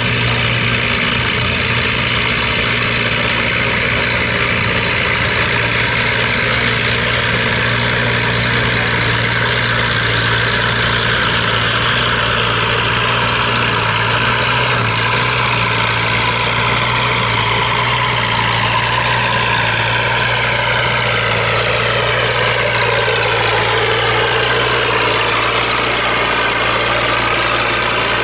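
Antique farm tractor engine running steadily with a deep, even hum. Its tone shifts and sweeps near the end.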